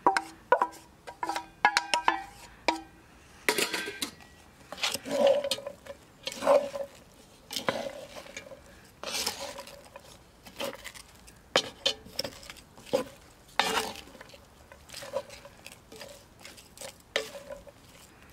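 A stainless steel bowl clinks and rings briefly against a cast-iron Dutch oven as sliced peppers are tipped in. Then a wooden spoon stirs raw meat, onions and peppers in the pot, with irregular scrapes and knocks against the cast iron about once a second.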